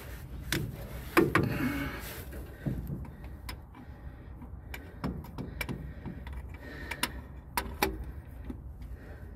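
Scattered metal clinks and knocks, the loudest about a second in, as a new mechanical fuel pump is pressed against a Pontiac 350 engine block and will not seat until the engine's cam is rolled over. A steady low hum runs underneath.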